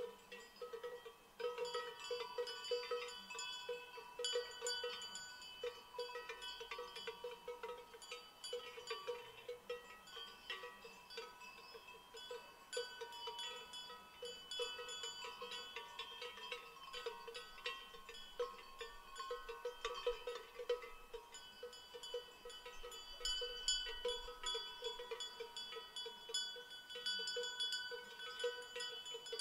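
Cowbells on grazing livestock clanking and ringing, a dense, irregular jangle of many bells at different pitches overlapping.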